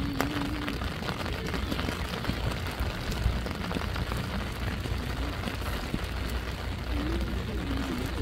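Steady rumbling noise of an open-air football pitch, with short shouts from players just after the start and again near the end.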